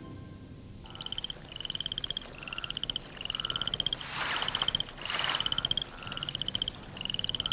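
Frog calling in a series of short, rapid pulsed trills, each about half a second long, rising slightly in pitch and repeating roughly once a second. Two brief rushes of noise come about four and five seconds in.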